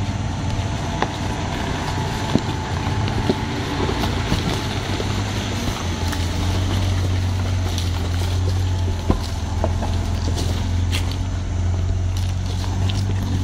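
Toyota Land Cruiser 80-series engine running at low revs as the 4x4 crawls over loose rocks, with a few sharp knocks of stones under the tyres. The engine gets louder about halfway through as the truck comes close alongside.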